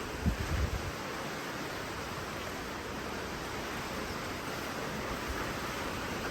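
Strong sandstorm wind blowing steadily with a rushing hiss, with low gusts buffeting the microphone in the first second.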